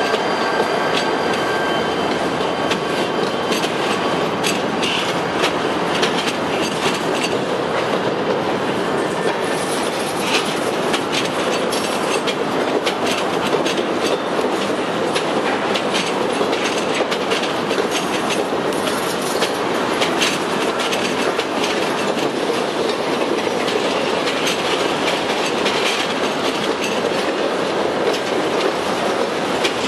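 Slow-moving freight train passing close by: the steel wheels of covered hopper cars roll over the rails with frequent irregular clicks at the rail joints. A thin, high wheel squeal fades out in the first couple of seconds.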